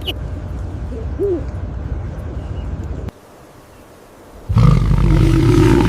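An owl hooting once, a short arched call, over outdoor background noise. About halfway through, the sound cuts to a quieter stretch, then a loud, deep, drawn-out animal call starts near the end.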